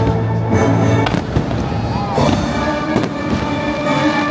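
Several fireworks shells bursting in quick succession over a loud music soundtrack.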